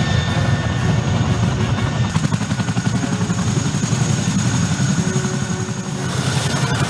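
Boeing CH-47 Chinook tandem-rotor helicopter running on the ground, its rotor blades beating fast and steadily, with a thin high whine above from about two seconds in.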